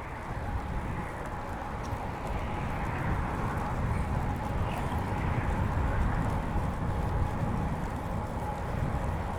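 Road bicycle rolling along a paved bike path: a steady low rumble of tyres and wind on the chest-mounted microphone, growing a little louder in the middle, with a faint steady tone above it.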